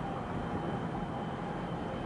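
Wind buffeting the microphone over a steady low rumble of harbour and ship noise, with a faint steady high-pitched whine.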